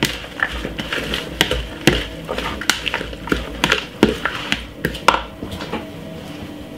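Metal spoon tossing a leafy salad in a clear plastic bowl: irregular clicks and knocks of the spoon against the bowl, stopping about five seconds in.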